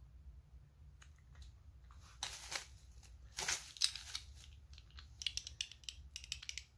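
Hands handling a small plastic coin tube: two short scraping rustles, then a run of light plastic clicks.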